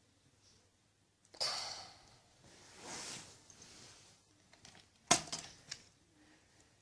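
Handling noise of plastic Lego minifigures and pieces: a sudden rustle, a softer breathy swell, then a quick cluster of sharp plastic clicks about five seconds in.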